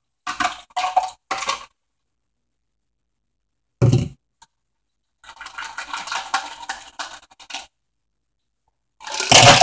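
Kitchen utensils and a bowl clinking and scraping while juice is strained. There are three quick clinks at the start, a thump about four seconds in, then a couple of seconds of scraping and clattering, and a louder clatter near the end.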